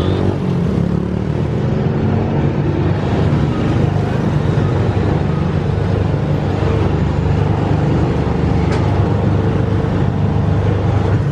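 Diesel train engine running steadily with a loud, low hum and rumble. A faint click comes about nine seconds in.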